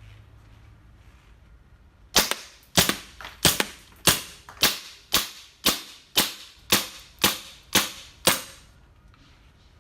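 Armorer Works DL-44 gas blowback airsoft pistol firing twelve single shots at about two a second, each a sharp pop.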